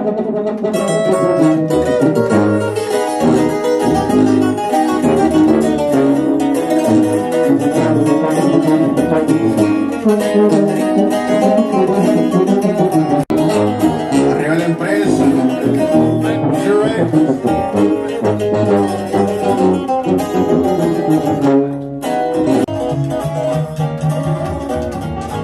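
Music led by plucked guitars.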